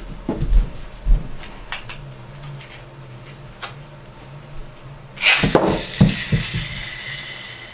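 A few dull thumps on carpet, then, about five seconds in, the rasping zip of a BeyWheelz ripcord launcher pulled hard, the loudest sound here. Several quick knocks of the toy wheel against the plastic stadium follow, and a thin steady whine as it spins.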